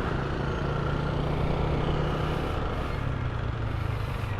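Motor scooter engine running steadily while riding, with road and wind noise; the engine note eases slightly lower about three seconds in.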